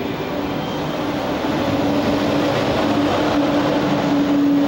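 TGV high-speed train pulling out of the platform and passing close by, a steady hum over rolling noise that grows louder as it picks up speed.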